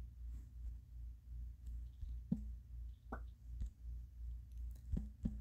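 Several light, sharp clicks at irregular intervals from a finger tapping a phone's touchscreen and on-screen keyboard, over a steady low pulsing hum.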